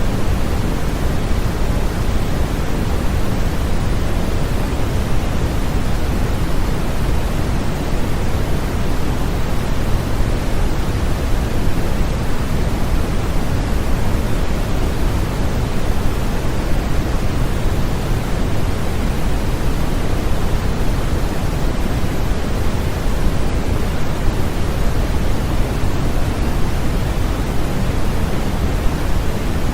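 Continuous, unchanging white noise played as a baby sleep aid, heavier in the lows and thinning toward the highs, like soft pink noise.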